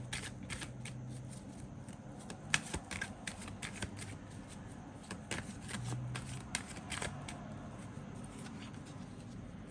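A deck of reading cards being shuffled by hand: a run of quick, crisp card clicks that thins out after about seven seconds.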